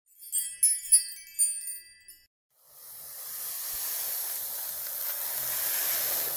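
Logo-sting sound effect: a sparkling chime of several quick, high tinkling notes over about two seconds. After a short gap comes a hiss that swells up and then holds steady.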